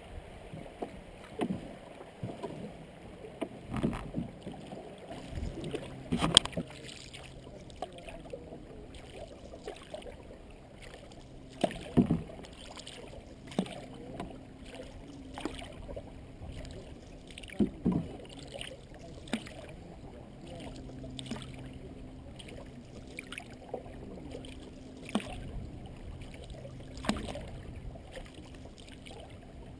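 Paddles of an open canoe dipping and pulling through the water in a steady stroke, a short splash every second or two, with a few much louder sharp strokes among them.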